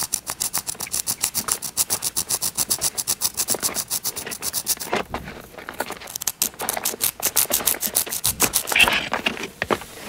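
Pencil graphite scraped rapidly back and forth on rough asphalt, in quick even strokes of about eight a second. The strokes pause briefly about five seconds in, then resume and grow louder near the end.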